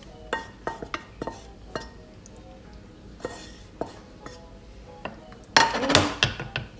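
Wooden spatula scraping and tapping caramelized fruit out of a non-stick frying pan into a ceramic baking dish: a run of light knocks and clinks with short ringing. About five and a half seconds in comes the loudest clatter, as the pan is set down on the stovetop.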